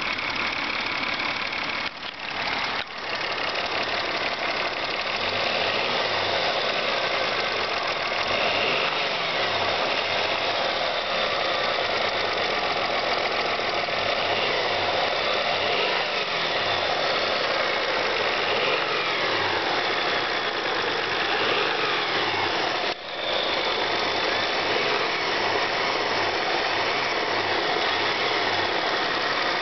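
Car engine running steadily with a knock, the fault the recording was made to show. The sound drops out briefly about two and three seconds in and again near the end.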